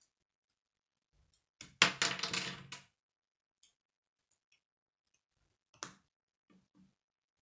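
K'nex plastic rods and connectors clicking and rattling as they are pressed together by hand: a quick run of clicks about two seconds in, then a single click later on.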